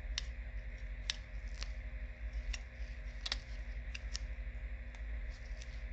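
Small sharp clicks and taps, about eight scattered irregularly, of a smartphone's parts being handled and pressed into place during reassembly, over a steady low hum.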